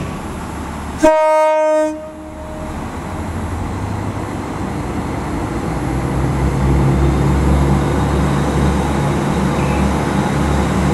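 A diesel multiple-unit train's horn sounds one short single-note blast about a second in. Then the low rumble of the train's engine and running gear builds as it gathers speed.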